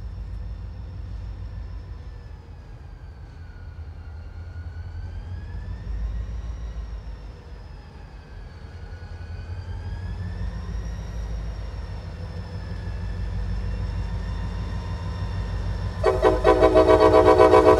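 Low rumble of an approaching Conrail freight train's diesel locomotive, rising and falling, then the locomotive's air horn sounding loudly as a steady multi-note chord from about two seconds before the end.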